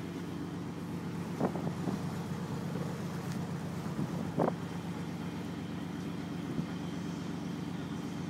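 Motor yacht's engines running steadily underway: a low, even drone, with wind on the microphone. Two faint knocks come about one and a half and four and a half seconds in.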